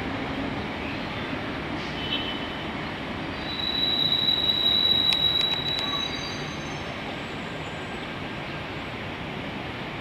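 Keio 3000-series electric train pulling away and running off, with steady rolling noise. About three and a half seconds in, a high steady wheel squeal sets in for about two and a half seconds, with a few sharp clicks near its end, as the train takes the curve.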